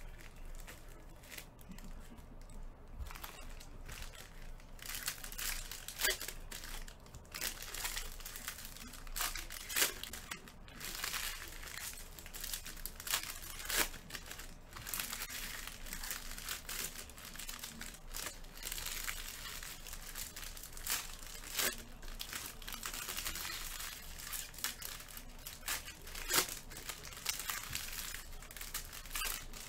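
Plastic and cellophane wrappers of Panini Prizm basketball card packs crinkling and tearing as they are handled and ripped open by hand, with sharp crackles at irregular moments.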